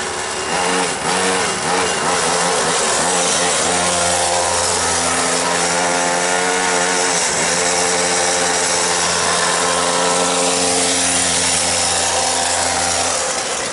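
Home-built quarter-scale RC car's small engine running under light throttle. It revs up about a second in, holds a steady higher speed with a brief easing off midway, and drops back near the end.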